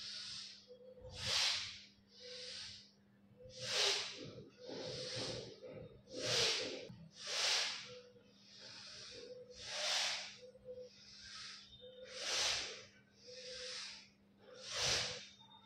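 A woman breathing audibly in a steady rhythm during a seated yoga warm-up. Breaths in and out alternate about every second and a quarter, and every other breath is louder.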